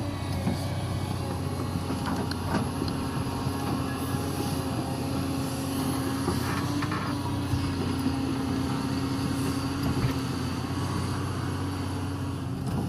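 Caterpillar 336D L hydraulic excavator's diesel engine running steadily under work. From about two seconds in until near the end a steady whine sits on top of it, with a few short knocks along the way.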